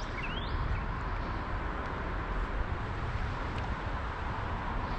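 Steady rushing outdoor background noise with no distinct events, plus two short rising chirps in the first half second.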